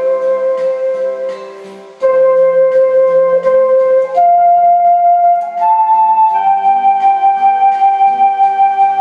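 Yamaha Wind Jamm'r electronic saxophone playing a slow melody in long held notes over a backing track with a steady beat. One note fades out just before two seconds in, a new note starts, and the melody then steps up to a higher pitch and holds it to the end.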